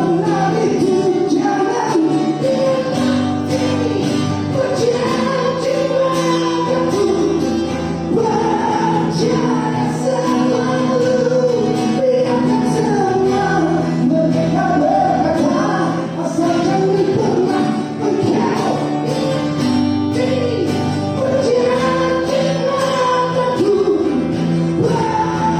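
Live band playing a pop-rock song, with voices singing over a steady bass line.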